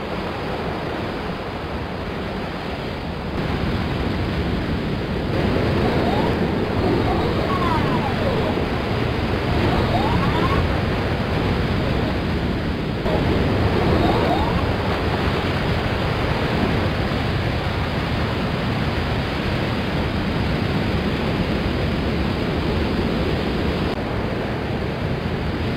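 Ocean waves and surf, a steady rush that swells louder over the first several seconds.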